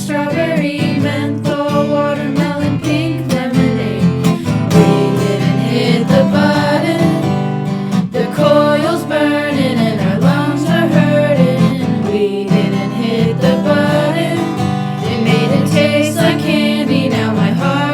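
Song with voices singing over a strummed acoustic guitar.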